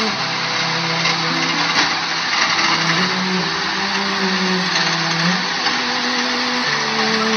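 Loud, steady rush of water churned up by a heavy truck driving through a flooded street, with the truck's engine running. Low held tones under the rush change pitch every second or so.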